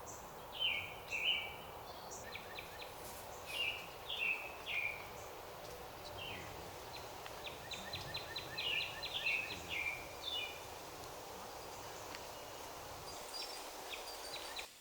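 Songbirds singing short, repeated whistled phrases, with a rapid run of notes in the middle, over a steady background hiss of forest ambience.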